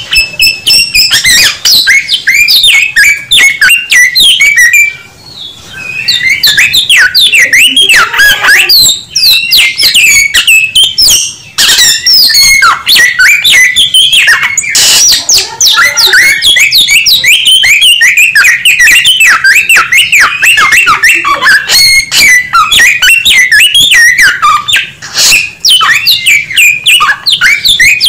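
A samyong (Chinese hwamei) singing loudly and almost without pause: a fast, varied run of whistled and chattering notes that swoop up and down, broken only by two brief pauses, about five seconds in and near the middle.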